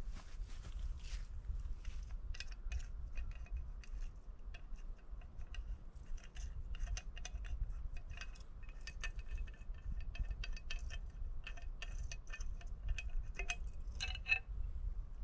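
Repeated light clinks and taps of small metal or glass items being handled, each with a brief ring, busiest in the second half and loudest near the end, over a steady low rumble.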